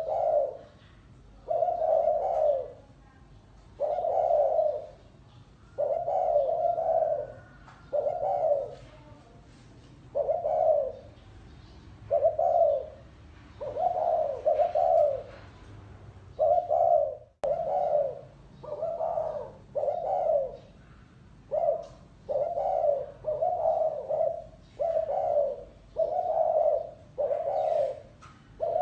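Spotted dove cooing: a steady series of low, mellow coo phrases, about one a second, with a brief break about two-thirds of the way through.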